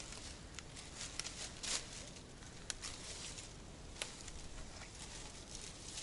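Footsteps rustling and crunching through dry fallen leaves in an irregular walking rhythm, with a few sharp clicks along the way.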